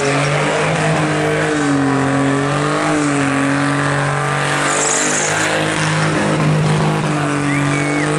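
Burnout car's engine held at high revs, its pitch wavering slightly, over the steady hiss and screech of the spinning rear tyres.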